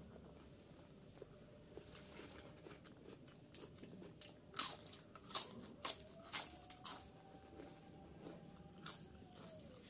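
Crisp papad being bitten and chewed close to the microphone: soft mouth and chewing sounds at first, then about six loud, sharp crunches in the second half.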